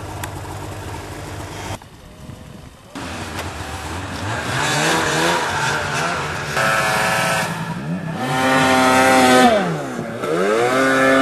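Snowmobile engines revving up hard, holding and dropping back in repeated bursts, with a quieter stretch about two seconds in. The sound changes abruptly at several points.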